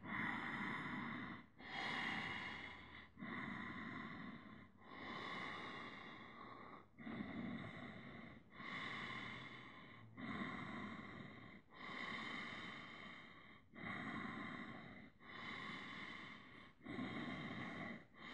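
A man's slow, deep yoga breathing held to an even pace: about a dozen in- and out-breaths of roughly a second and a half each, with a brief pause between them.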